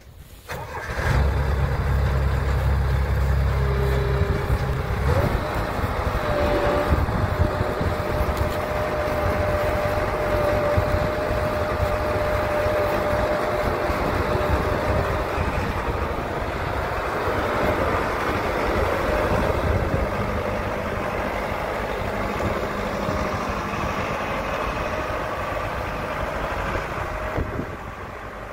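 John Deere 6600 self-propelled sprayer's engine running steadily, with a thin steady whine on top from about six seconds in to about halfway.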